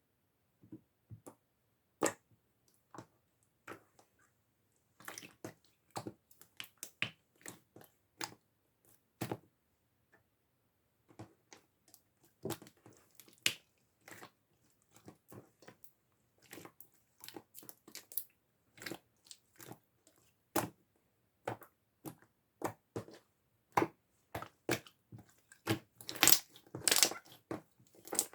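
Clear blue slime being worked by hand, making irregular sticky clicks and small pops. The clicks come thicker and louder near the end.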